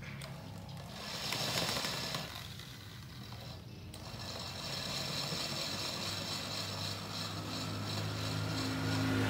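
Corded electric hand drill with a 10 mm bit boring the oil-pump passage in a motorcycle clutch cover: a short run about a second in, then running steadily from about four seconds, growing louder toward the end.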